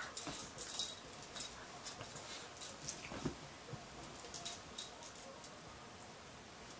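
A schnauzer and a kitten play-fighting on a blanket: repeated scuffling and rustling of the bedding as they tumble and paw. A little past three seconds the dog makes a brief low sound.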